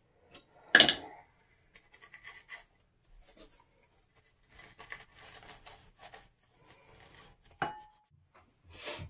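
A scrubby pad rubbed against a metal tub spout in short, scattered scrubbing strokes. A sharp knock about a second in is the loudest sound, and there is a short ringing click near the end.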